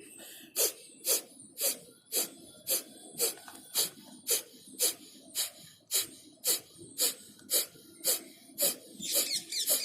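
Kapalbhati pranayama: a man's short, forceful exhalations snapped out through the nose, about two a second in an even rhythm.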